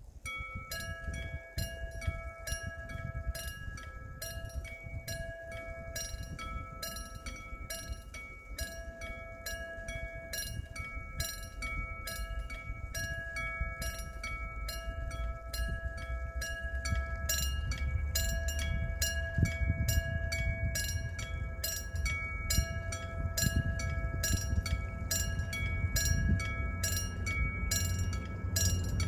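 Level-crossing warning bell ringing with rapid, evenly repeated dings. Under it a diesel locomotive hauling a train approaches, its engine and wheel rumble growing louder over the second half.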